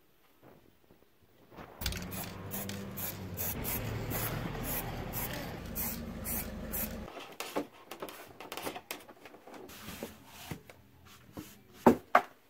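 Aerosol spray can hissing in a run of short bursts. Near the end, two sharp knocks.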